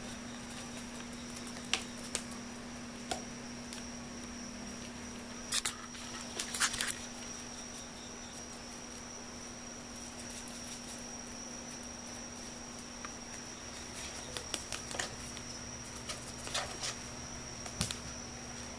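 Electric circulator fan running with a steady hum and a thin high whine, broken by short bursts of rapid ticking and rattling from a bird feather poked into the spinning blades. The bursts come around six seconds in and again several times near the end.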